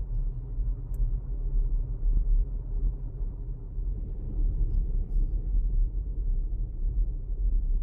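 Low, steady road rumble inside a Geely Atlas PRO's cabin while driving at about 50 km/h, with a faint click or two.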